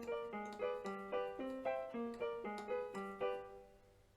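A DEK 610P 61-key electronic keyboard played by hand: a quick run of single notes, about four a second, each sounding briefly and fading. The playing stops a little before the end.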